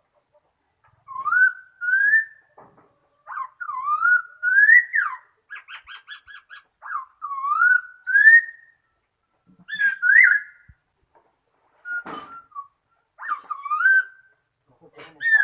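Laughingthrush singing: a series of loud rising whistled phrases, broken about six seconds in by a quick run of rattling notes and by sharp chips.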